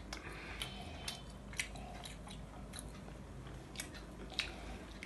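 Quiet eating sounds: people chewing, with scattered small mouth clicks and smacks.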